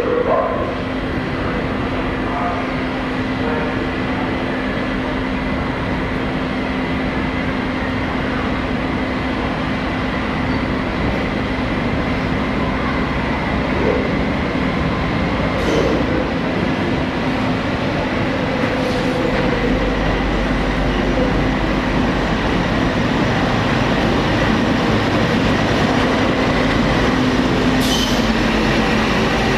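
Diesel locomotive hauling passenger carriages slowly alongside a station platform: a steady engine hum under a constant rumble, deepening about two-thirds of the way in as the locomotive draws past, with a few short clicks.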